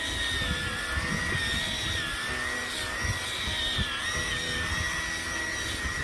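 Panasonic corded epilator running against the skin of a forearm: a steady high motor whine that wavers slightly in pitch, over a low rattle of its plucking head.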